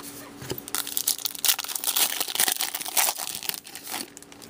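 Foil trading-card pack wrapper crinkling and tearing: a dense crackle of small clicks lasting about three seconds.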